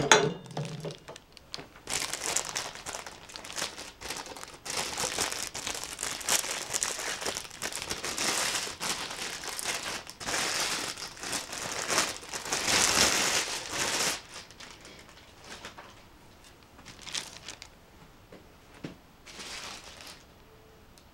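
Thin plastic packaging film crinkling and rustling as it is handled and pulled off, a long stretch of steady crackle that dies down to a few faint rustles near the end.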